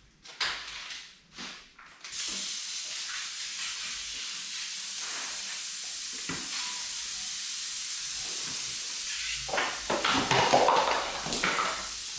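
A steady rushing hiss of air in a spray booth starts suddenly about two seconds in and holds on, after a few light knocks. Louder irregular knocks and clattering come near the end.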